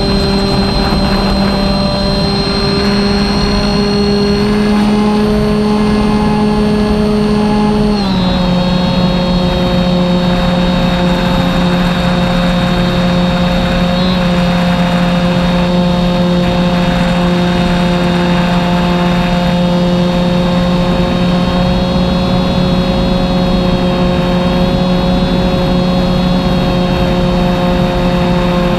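BigStick radio-controlled model plane's engine and propeller running steadily, recorded on board, over a constant rushing noise. The engine's pitch drops a step about eight seconds in, then holds steady.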